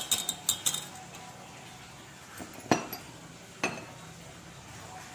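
Metal spoon clinking against a stainless steel mixing bowl. A quick cluster of four clinks comes at the start, then two single ringing strikes about a second apart near the middle.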